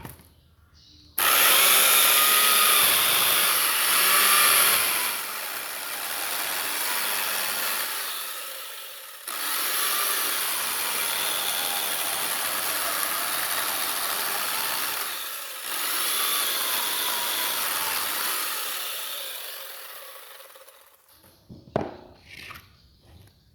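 Chainsaw cutting into wood, starting abruptly and running loud with its pitch wavering as it bites. It eases off briefly a few times and tails away near the end, followed by a couple of short knocks.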